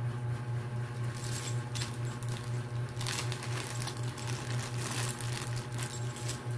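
Clear plastic parts bag crinkling and rustling in gloved hands, in short bursts about a second in and more steadily through the second half, over a steady low hum.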